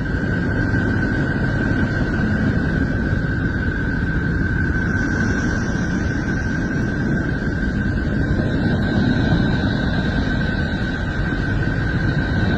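Space sonification: spacecraft radio-wave recordings turned into sound, a steady dense rumble with a single high whistling tone held without change, and a fainter, higher tone joining about eight seconds in.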